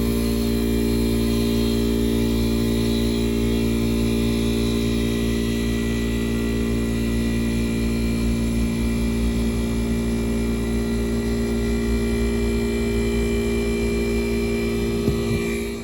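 Air conditioning unit running: a steady motor hum under the rush of its fan, dropping away near the end.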